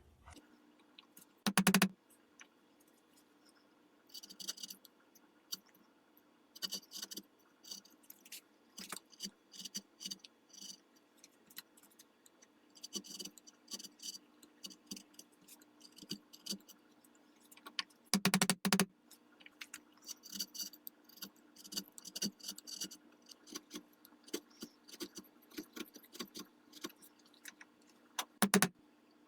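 Short, irregular scraping strokes of a chisel and file paring wood from a walnut rifle stock to fit the buttplate, with three louder knocks: about two seconds in, midway through and near the end.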